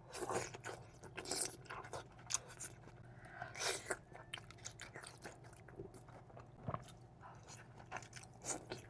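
A person chewing and biting food from an onion boil close to the microphone, with irregular short crunching and smacking mouth sounds.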